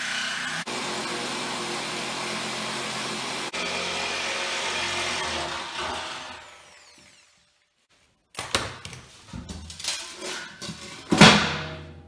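Angle grinder cutting through the steel shell of a water-heater tank with a steady whine, winding down and stopping about six seconds in. After a short gap come metal clanks and one loud ringing clang near the end as the cut-off steel tank section is handled.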